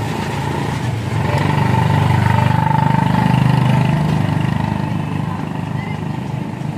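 A motor vehicle's engine runs close by, a low steady hum that grows louder about a second and a half in and eases off again after about four seconds.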